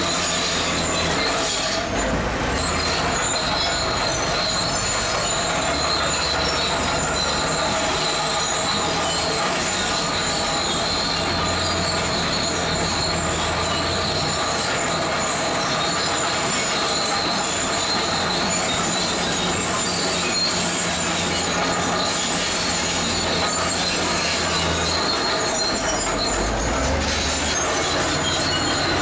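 Zoomlion crawler bulldozer at work: its diesel engine runs under load while the steel tracks give a steady high squeal. The low engine note shifts a few times.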